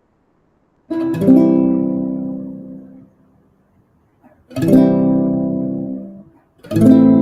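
Acoustic guitar strumming three slow chords, each left to ring out and fade before the next, as the introduction to a sing-along song.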